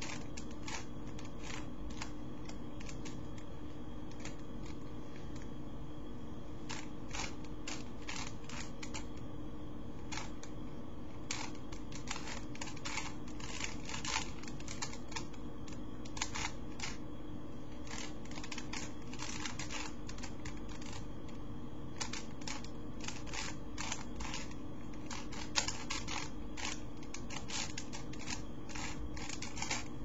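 Plastic Rubik's cube being twisted by hand: irregular runs of quick clicking as the layers turn, over a steady hum.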